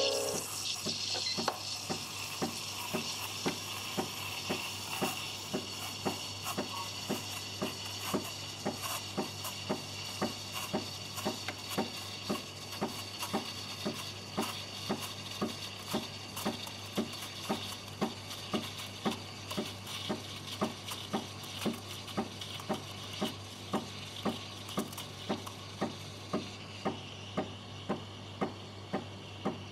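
Breville Barista Express steam wand hissing steadily in a pitcher of non-dairy milk as the milk is steamed, with a regular clicking about one and a half times a second from the machine's pump.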